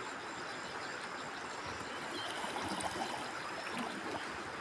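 Fast-flowing mountain river rushing over rocks, a steady even noise of water.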